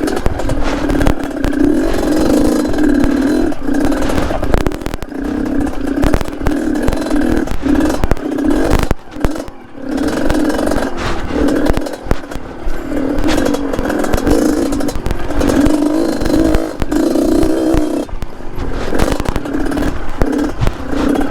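Yamaha DT trail bike with a two-stroke RX-King engine, revving up and down in short bursts as it is ridden over rocks, with clattering and scraping from the bike on the stones.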